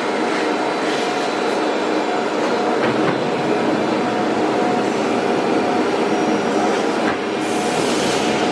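Nesting CNC router running: a steady mechanical noise with several held tones, and a hiss joining in about a second before the end.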